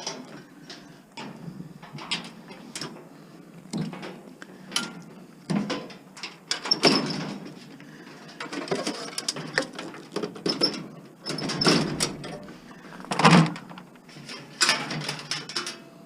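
Irregular clicks, knocks and scraping of hand tools on sheet metal and wiring as a scrap appliance is pulled apart. The loudest clatters come about seven seconds in and again near thirteen seconds.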